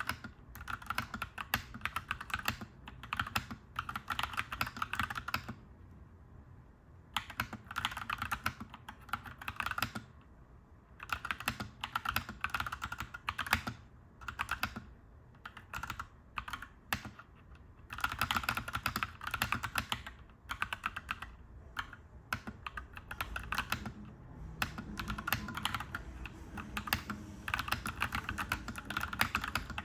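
Clacky mechanical keyboard being typed on in runs of fast keystrokes a few seconds long, with short pauses between runs, over a low steady background hum.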